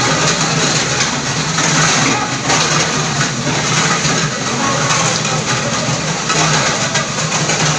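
Paver block making plant machinery running steadily: a loud mechanical drone with a constant low hum underneath, as the conveyor carries concrete mix.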